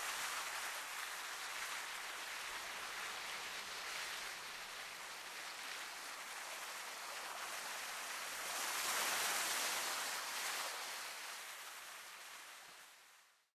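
Sea surf washing against a rocky shore: a steady hiss of waves that swells about nine seconds in, then fades out near the end.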